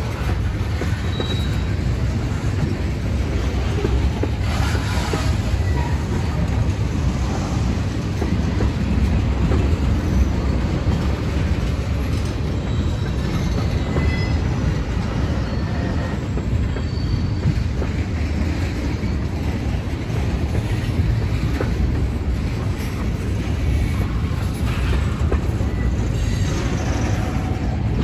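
A train rolling past on the rails: a steady, loud rumble of wheels and cars, with a few brief high wheel squeals.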